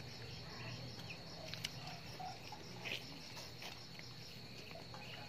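Insects chirping steadily in a continuous high trill, with a few faint clicks.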